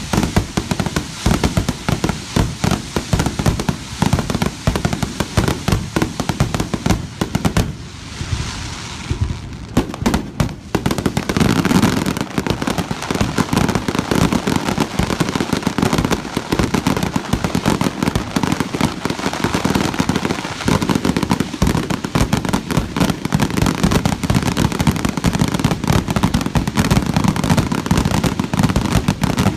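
Fireworks finale: aerial shells bursting in a dense barrage, bangs following one another so fast they overlap. About eight seconds in the bangs thin out briefly under a crackle, then they resume even more densely.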